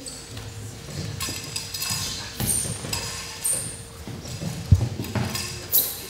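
A long-handled bladed weapon swishing through the air as it is spun and swung in a martial-arts form, with bare feet thudding on judo mats. A sharp thud about three-quarters of the way in is the loudest sound.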